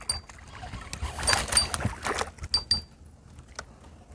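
A hooked crappie splashing at the water's surface as it is reeled up to the boat, mostly around the middle of the clip. A few short, high chirps come through the splashing.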